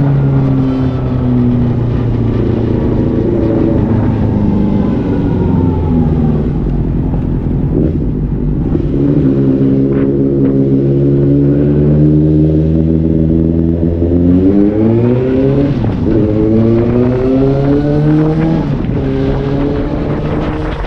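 Suzuki GSR750's inline-four engine under way: the engine note eases down early on, holds steady for several seconds, then climbs as the rider accelerates about two-thirds of the way through, with a short dip at a gear change before settling again.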